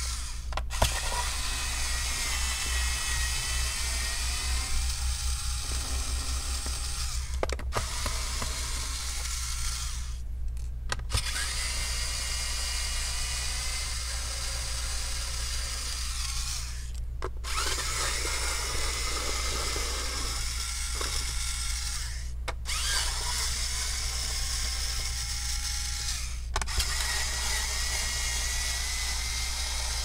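Electric screwdriver's small motor whirring as it backs out the laptop's bottom-cover screws, in several runs broken by short pauses, with its pitch shifting under changing load.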